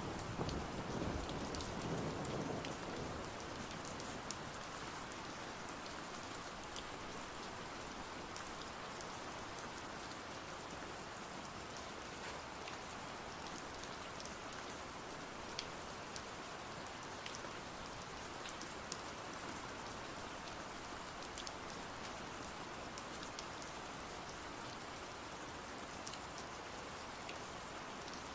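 Steady rain with scattered faint drop clicks. The tail of a thunder rumble dies away in the first few seconds.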